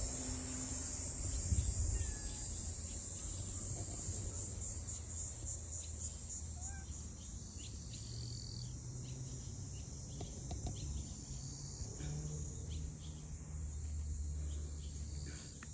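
Steady high-pitched insect trilling, pulsing rapidly for a couple of seconds near the middle, with a few short bird chirps and a low rumble underneath.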